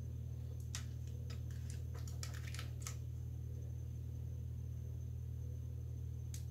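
Tarot cards being shuffled by hand: a quick run of light card clicks and flicks in the first three seconds and one more near the end, over a steady low hum.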